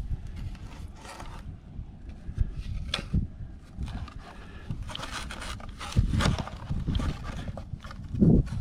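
Irregular rustling, scraping and knocking handling noises of someone searching the ground and boards for spent bullets, with louder bursts about five and six seconds in and again near the end.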